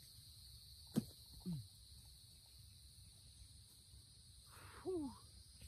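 Steady high-pitched insect drone of a summer field, broken by a sharp click about a second in and two brief calls that glide down in pitch, one just after the click and one near the end.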